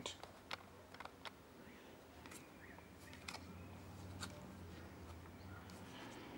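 Faint clicks and soft rustling of trading cards being thumbed through by hand, one card slid past another. A faint low hum comes in about halfway through.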